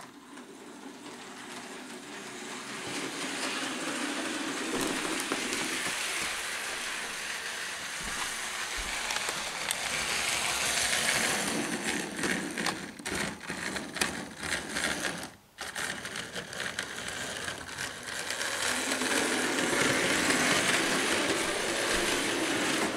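Electric model train locomotive running along the track with its coaches, a steady whirr and rattle that grows louder over the first few seconds. A run of sharp clicks comes about halfway through, and the sound swells again near the end.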